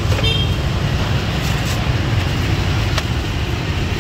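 A steady low rumble of background noise, with a short click about three seconds in.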